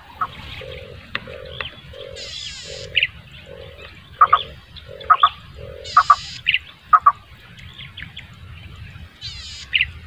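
Wild birds calling: a run of about eight evenly spaced low hoots over the first half, with scattered short high chirps and three brief high buzzy trills spread through.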